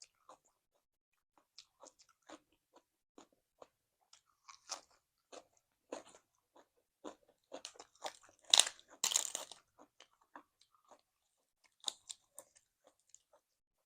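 A person biting and chewing crunchy food close to the microphone: a run of irregular, crisp crunches, with a louder burst of crunching about eight and a half to nine and a half seconds in.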